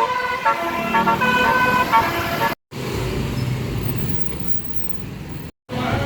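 Bus telolet basuri horn playing a short melody of changing notes, then cut off abruptly; after the cut, a few seconds of bus engine and traffic noise, and near the end the horn starts sounding again.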